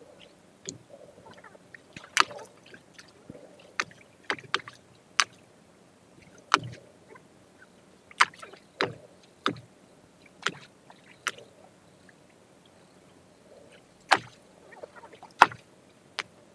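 About fifteen irregular sharp splashes and knocks in water, some with a dull thud, with a pause of a couple of seconds partway through.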